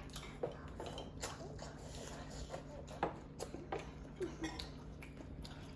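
Quiet mealtime sounds: scattered light clicks and taps of eating utensils against dishes, with a faint low voice now and then.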